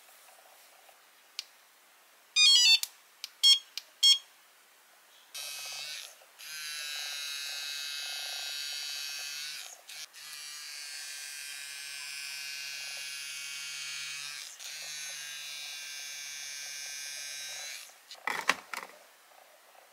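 Handheld LED facial beauty device: a short run of electronic beeps as it is switched on, then a steady electric buzz as it vibrates against the skin, dropping out briefly a few times. A few sharp clicks near the end.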